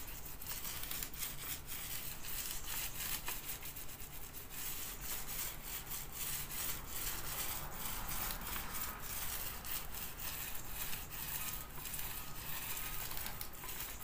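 Mini paint roller loaded with thinned paint rolling up and down a wall: a steady rubbing full of tiny clicks.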